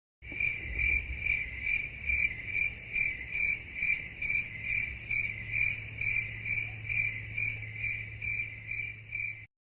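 Stock crickets-chirping sound effect: an even, pulsing chirp a little over twice a second that starts and then cuts off abruptly, the gag effect used for an awkward silence.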